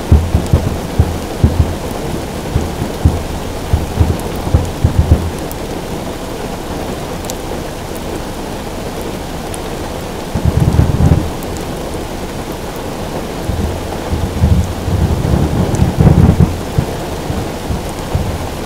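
Aerial fireworks shells bursting in low booms: a quick string of them in the first five seconds, one heavier burst about ten seconds in and another cluster near the end. Under them is a steady patter of rain drumming on a car roof.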